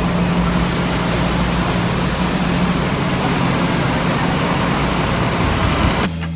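Coach bus engine running steadily: a constant low drone with a steady hum under it.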